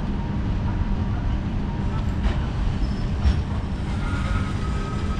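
Passenger coaches of a departing train rolling slowly past: a steady low rumble of wheels on rail, with two clicks about a second apart as wheels cross rail joints, and a thin, faint squeal setting in near the end.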